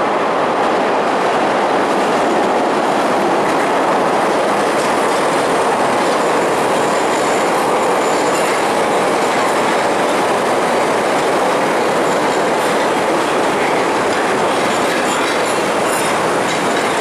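Chicago 'L' Brown Line rapid-transit train running along an elevated station platform: a steady rumble of steel wheels on the rails. A faint high wheel squeal joins in from about halfway through.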